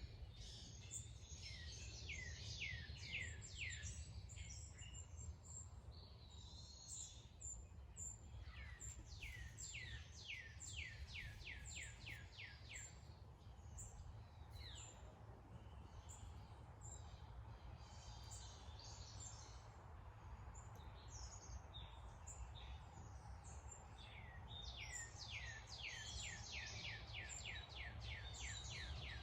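Wild birds chirping outdoors, repeating rapid runs of short falling notes in several bouts, over a steady low background rumble.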